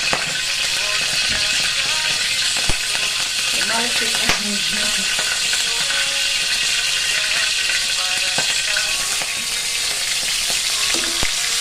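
Hot oil sizzling steadily in a stainless steel wok while food is stirred with a metal spatula, with a few sharp clicks of the spatula against the wok.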